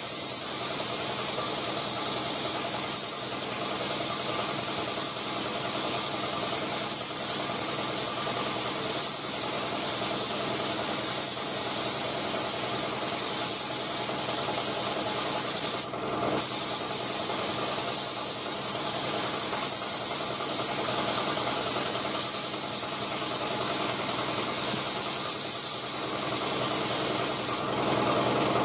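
Binks Model 7 siphon-feed spray gun hissing steadily as it sprays single-stage acrylic urethane paint, the air cutting off briefly about halfway through and again near the end as the trigger is let go between passes. A steady mechanical hum runs underneath.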